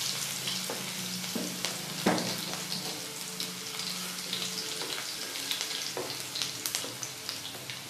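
Crushed garlic and cumin sizzling in hot oil in a nonstick kadhai while a spatula stirs it, scraping, with a few sharp knocks against the pan; the garlic is being fried until it browns.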